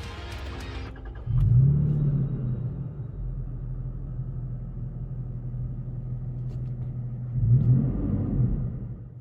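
2020 Toyota Tacoma's 3.5-litre V6 with an MBRP 3-inch catback exhaust, heard from inside the cabin: the engine starts about a second in with a loud flare, then settles to a steady idle. Near the end there is a short rev, and then the sound cuts off.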